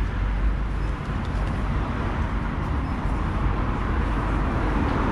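Busy street ambience: road traffic running steadily along a main road, with a low rumble.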